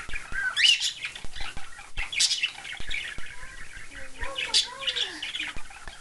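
Pet cockatiels chirping and chattering: a short rising whistled chirp about half a second in, sharp high calls around two and four and a half seconds in, and lower warbling chatter in the second half, with light clicks between.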